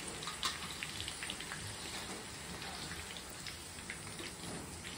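Green chillies deep-frying in hot oil in a steel kadhai: a steady sizzle with many small pops and crackles.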